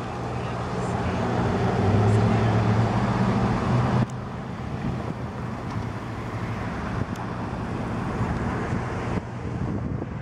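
Road traffic: a motor vehicle's engine running close by, with a steady low hum that is loudest in the first four seconds, then general street noise.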